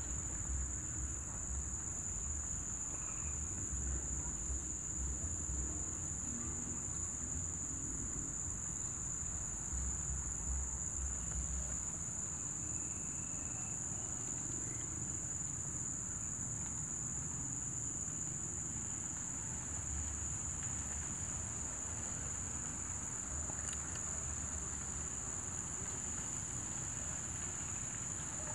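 Steady high-pitched insect trill, with a low rumble coming and going underneath.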